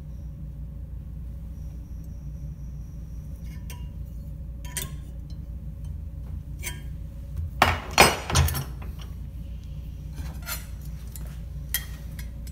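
Metal clinks and clanks of a bending iron working an orthotic stirrup clamped in a bench vise, with a cluster of louder clanks about eight seconds in.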